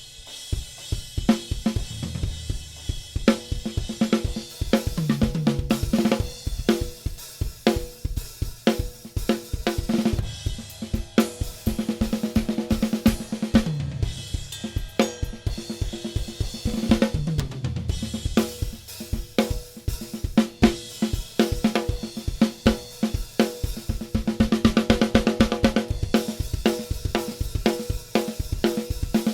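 Acoustic drum kit played in a steady groove of bass drum, snare, hi-hat and cymbals, broken several times by fills that drop in pitch across the toms.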